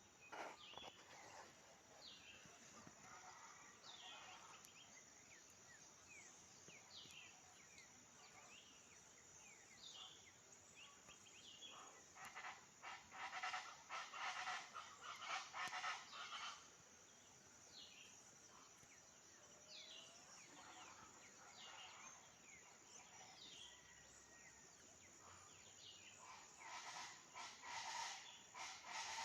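Faint countryside ambience: many short descending bird chirps over a steady high hum. There are two spells of louder, denser animal calls, one about twelve seconds in and one near the end.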